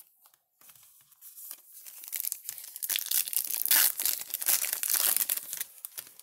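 A Topps Gallery baseball card pack's wrapper being torn open and crinkled. The crackling builds after about a second and a half, is loudest in the middle, and stops just before the end.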